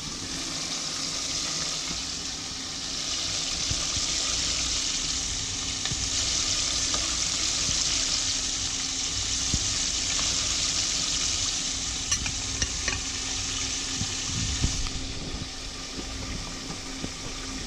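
Chicken wings frying in hot oil in a deep fryer: a steady sizzling hiss that swells a few seconds in and eases off near the end. A few light clicks come through late on.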